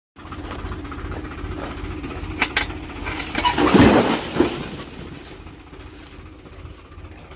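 Tractor engine running steadily, with two sharp clicks around two and a half seconds in and a louder rushing swell peaking about four seconds in before settling back to a lower running sound.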